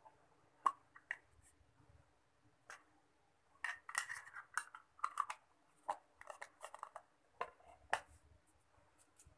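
Small black plastic project box being handled: scattered light clicks, taps and scrapes, thickest in the middle, with a sharper tap as it is set down on the work board near the end.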